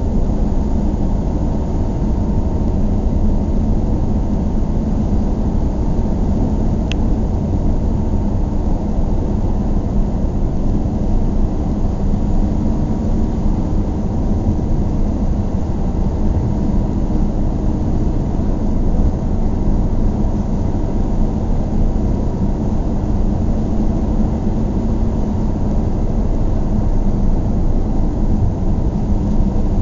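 Steady low rumble of a car driving on a highway, its engine and tyres running on the road without letup. A faint, brief click is heard about seven seconds in.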